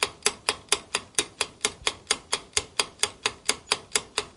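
Quiz countdown-timer sound effect: sharp, evenly spaced clock-like ticks, about four a second.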